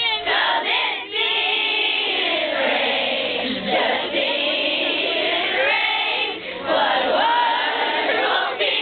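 A group of high-pitched voices singing and shouting together at once, their pitches wavering and overlapping rather than in unison.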